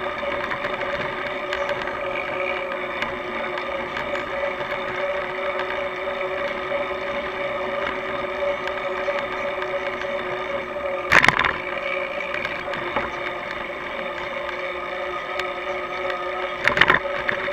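Steady rolling noise of a bicycle ridden along a road, picked up by a camera on the bike, with a steady hum under it. Two brief loud knocks, about eleven and seventeen seconds in.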